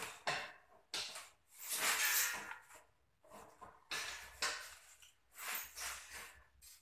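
A series of irregular scraping and rustling bursts from hands-on work, each under a second long, the loudest about two seconds in.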